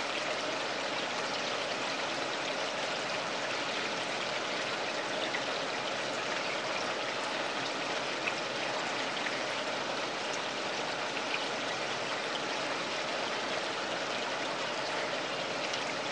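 Steady sound of running water in a home garden pond, such as its circulating water feature.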